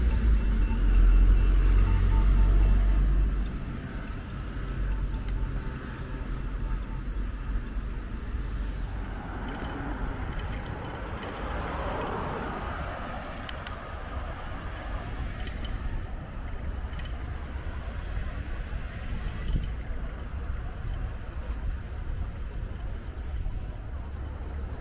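Street traffic: a vehicle passes close in the first few seconds with a loud low rumble, then the steady noise of cars going by, with another passing about halfway through.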